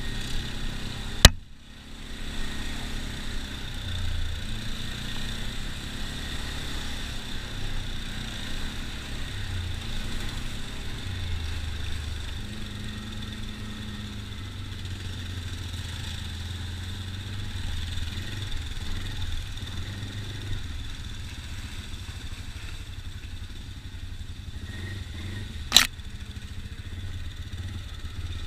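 ATV engine running, its rumble swelling and easing with the throttle, with two sharp knocks, one about a second in and one near the end.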